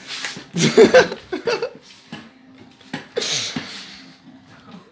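Boys laughing and letting out short wordless shouts, with a breathy burst of laughter a little past the middle.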